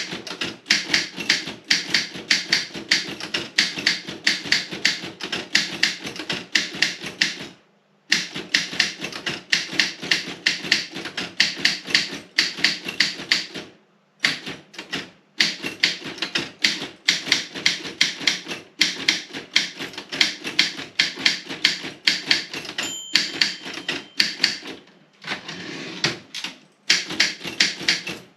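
Robotron 20 typewriter being typed on quickly: a fast run of sharp key and typebar strikes, broken by a few short pauses. A brief high ringing tone sounds once, about four-fifths of the way through.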